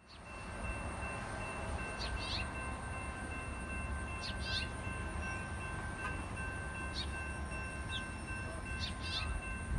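Railroad grade-crossing warning bells ringing with steady pulsing tones over a low steady rumble, as the crossing gates begin to rise.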